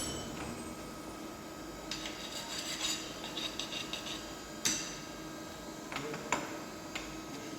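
Metal clinks and knocks in a machining shop over a steady machine hum: a quick run of small clinks about two to three seconds in, then two sharper metal strikes, one near the middle and one about a second and a half later.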